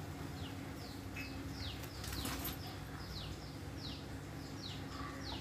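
A small bird chirping over and over, short high chirps that slide downward, about two to three a second, over a faint steady low hum.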